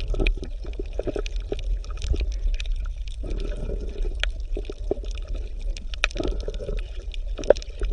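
Shallow creek water gurgling and lapping, with many small irregular clicks and splashes over a steady low rumble.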